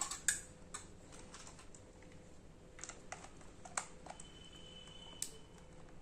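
Irregular light clicks and taps of plastic as a toy RC stunt car and its small wire connector are handled, about eight in all, the sharpest right at the start.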